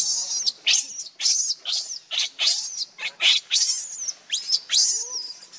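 Newborn pig-tailed macaque crying: repeated high-pitched shrieks, about two a second, many sliding down in pitch.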